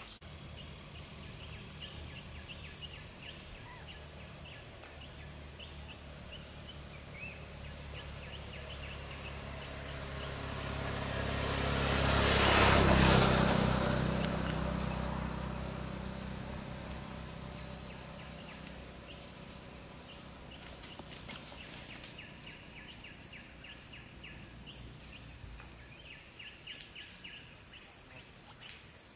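A motor vehicle passing on the road, its engine and tyre noise swelling over several seconds to a peak near the middle, then fading away. Faint high-pitched chirps in the background.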